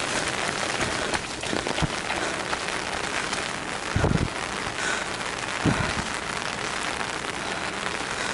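Steady rain falling on pavement, an even hiss with fine patters. Two short, dull low thumps come about four and five and a half seconds in.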